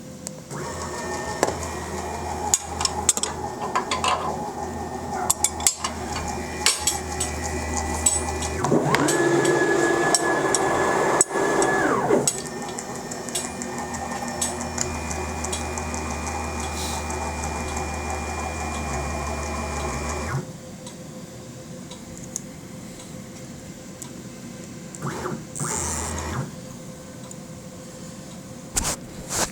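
CNC router's stepper motors jogging the axes into position with a steady motor whine. There is a faster, louder move from about 9 to 12 seconds in, and the motion stops around 20 seconds. A short move follows near the end, with scattered small clicks throughout.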